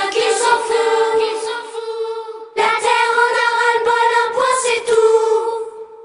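Closing bars of a pop song: a choir sings held notes over the accompaniment, with a brief break about two and a half seconds in, then a long final note that fades out near the end.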